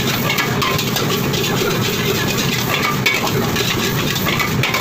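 Schezwan fried rice being cooked: a steady roar with many short metallic clinks and scrapes of a ladle working the wok.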